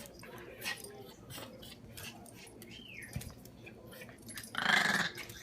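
A puppy making a short high whine about three seconds in, among scattered light clicks and rustles, then a louder, rough sound lasting about half a second near the end.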